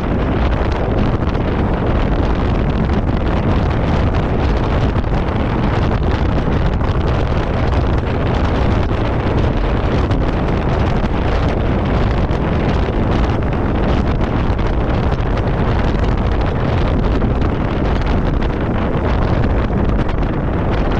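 Steady wind buffeting the microphone aboard a DCB powerboat under way, with the boat's running noise on the water beneath it.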